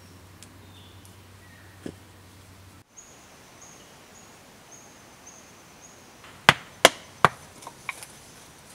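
Three sharp, loud knocks about half a second apart, followed by a few lighter ones: a wooden digging stick striking hard, stony ground.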